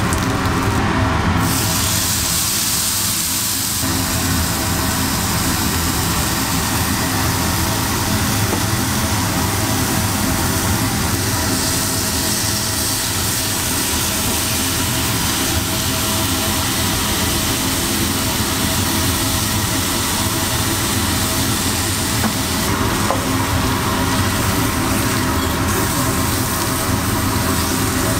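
Food sizzling on a hot flat-top griddle, a steady hiss over a constant low rumble.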